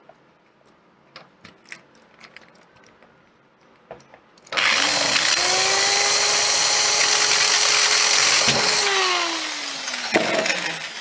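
Handheld electric drill starting up with a rising whine, running steadily for about four seconds while boring a hole through a plastic switch box, then winding down with a falling whine. Light handling clicks come before it.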